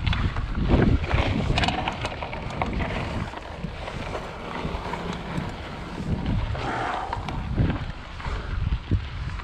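A Trek Fuel EX 5 mountain bike riding over a dry, bumpy dirt trail. Wind rumbles on the microphone, and the tyres and frame rattle and knock irregularly over the rough ground.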